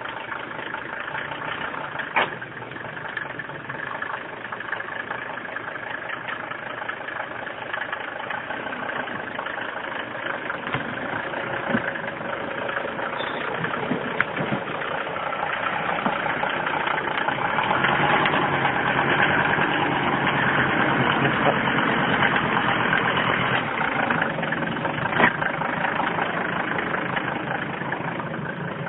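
Engine of an old ARO off-road vehicle running as it crawls over rough, overgrown forest ground. It works harder and grows louder about two-thirds of the way through, with a couple of sharp knocks.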